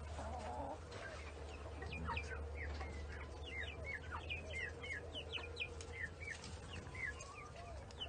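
Flock of heritage chickens calling: a run of short, high chirping notes, several a second, over a steady low hum.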